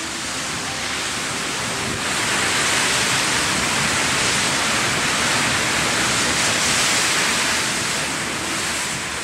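Rough sea surf breaking and washing over a concrete breakwater: a steady rush of breaking waves that grows louder about two seconds in and eases slightly near the end.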